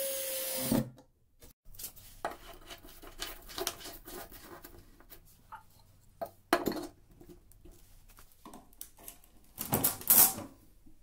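Cordless drill driving a screw, stopping just under a second in. Then clicks and scrapes of a light bulb and a glass jar being fitted over a wall-mounted lampholder, the loudest scraping near the end.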